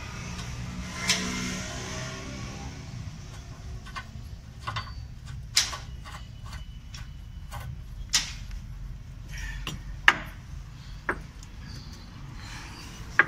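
Scattered sharp metallic clicks and taps as a washer and 17 mm nut are fitted by hand onto the stabiliser bar (balance rod) end at the lower arm of a Maruti Alto K10's front suspension, the loudest tap about ten seconds in, over a low steady hum.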